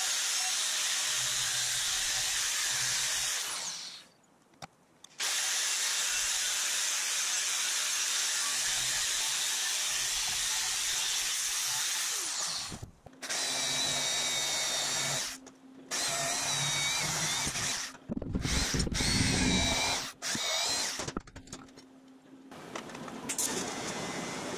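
Angle grinder cutting into the tube of an old bicycle frame, running in several long stretches broken by brief stops.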